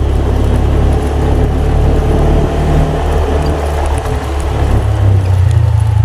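Vehicle engine running steadily as it travels along a road, with a deep low hum that grows louder about five seconds in.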